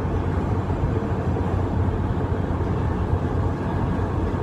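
Steady low rumble of road noise inside a pickup truck's cab cruising at freeway speed: engine, tyres and wind blended together.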